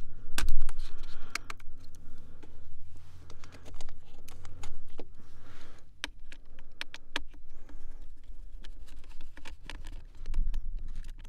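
Light, irregular clicks and taps from hands working inside an opened Framework 13 laptop: the battery connector being unplugged and the battery's captured screws being loosened. A sharper click comes about half a second in.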